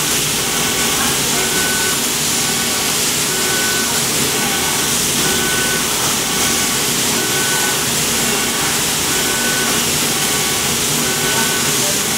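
Laser cutting machine at work cutting fabric: a steady hiss, with short high whines recurring every second or so as the cutting head moves from cut to cut.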